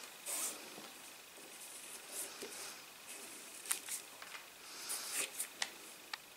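Cotton macrame cord rustling and swishing through the fingers as square knots are tied and pulled tight, with a few light sharp ticks in the second half.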